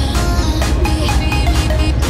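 Electronic music with a steady beat and heavy bass.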